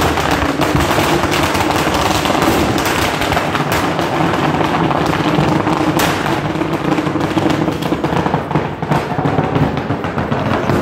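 Firecrackers bursting in a burning fire, a rapid, unbroken crackle of many small bangs.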